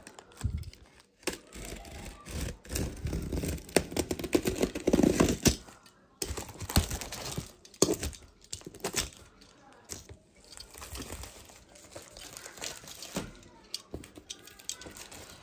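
Cardboard mattress box being opened by hand: packaging torn and crinkled in irregular bursts, loudest a few seconds in.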